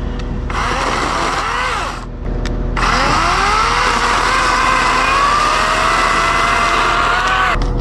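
Wild Badger 40-volt battery electric chainsaw running in two bursts, a short one and then a longer one of about five seconds, cutting through a tree limb. Its motor whine rises as the chain spins up and then sags under the load of the cut.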